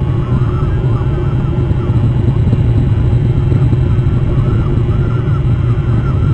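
A flock of gulls calling continuously, many overlapping short calls, over a loud, steady low rumble.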